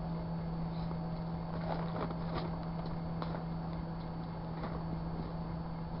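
Microwave oven running with its steady electrical hum while a printer ink cartridge burns inside, with scattered crackles and pops from the fire, most of them between one and five seconds in.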